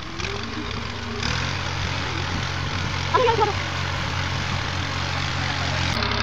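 Farm tractor engine running steadily under load as it pulls a heavily loaded trolley, its hum growing stronger about a second in. A short wavering call is heard about three seconds in.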